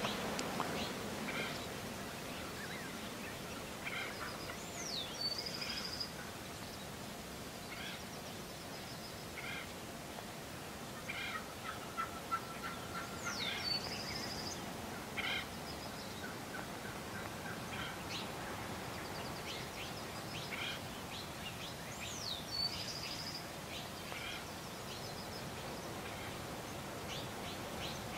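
Gould's wild turkeys gobbling and calling in short, scattered bursts from a strutting flock. A small bird sings a short high song with a sweeping note three times, about nine seconds apart.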